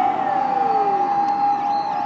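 Fire rescue truck sirens on an emergency run. One tone is held steady while overlapping wails glide slowly down in pitch, and a new rise begins near the end.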